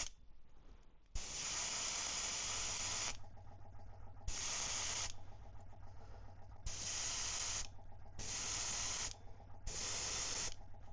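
Airbrush spraying paint in five short bursts of hiss: a long first pass of about two seconds, then four passes of about a second each with brief pauses between.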